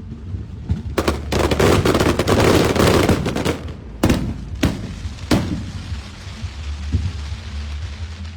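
Fireworks going off: a rapid crackling salvo of bangs for about two and a half seconds, then three single loud bangs about half a second apart, then a fading crackle.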